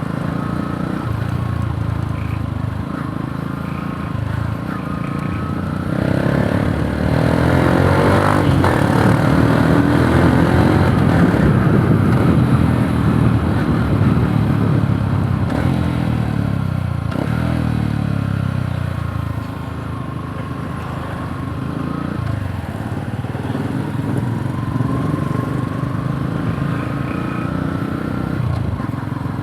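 Yamaha YTX 125 motorcycle engine running while being ridden, the revs climbing in steps through the gears about a fifth of the way in and staying loud for several seconds, then easing off.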